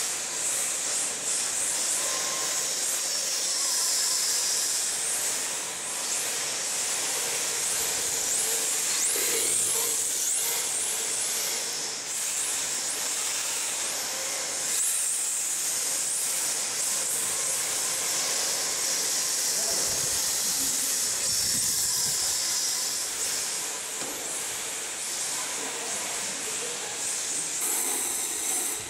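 Electric RC drift cars sliding on smooth concrete: a steady hiss of hard tyres scrubbing across the floor, with the high whine of brushless motors rising and falling as the throttle is worked.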